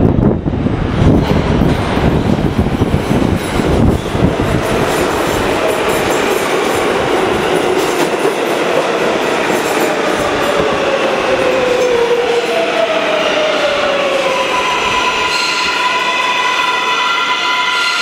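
R143 subway train pulling into an underground station: heavy rumble and wheel clatter as it comes in, then a whine from its AC traction motors that falls in pitch in several stepped tones as it brakes, slowing almost to a stop near the end.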